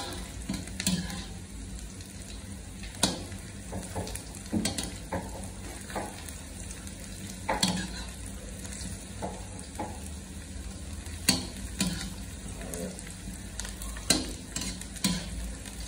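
Sliced onions frying in oil in a black iron karahi, sizzling steadily while being browned, as a steel ladle stirs them and knocks and scrapes against the pan every second or two.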